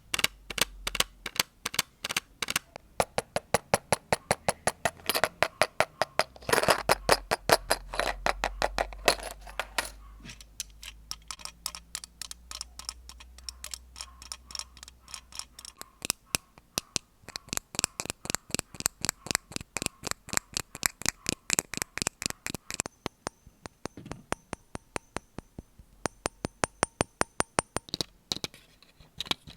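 ASMR tapping triggers: quick, evenly spaced taps and clicks on a series of objects, about five a second. The sound changes character several times as one trigger gives way to the next, with a light ringing under the taps later on.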